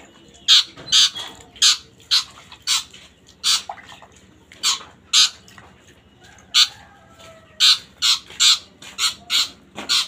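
Young long-tailed shrike (pentet) chick giving short, harsh squawking calls, about fifteen at irregular intervals, as it is hand-bathed with water.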